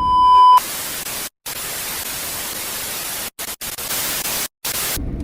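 A loud, steady high beep for about half a second, then a hiss of TV-style static that drops out abruptly four times, like an edited glitch transition sound effect.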